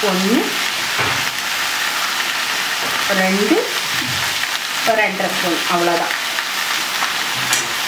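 Chicken pieces frying in oil in a kadai, a steady sizzle.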